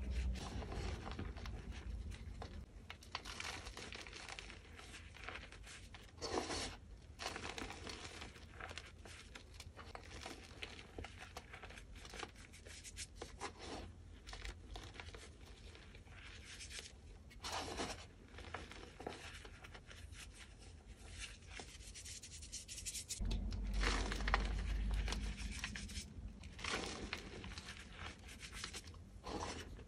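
Hands rubbing, squeezing and crumbling loose gym chalk powder, with soft crunches and powdery rubbing that come in irregular strokes. A louder stretch of pressing comes about 23 seconds in.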